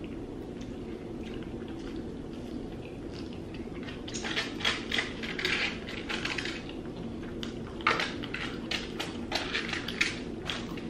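Close eating sounds: bites and chewing of fried chicken and light handling of a side cup and spoon, coming as short crackly bursts from about four seconds in, over a steady low hum.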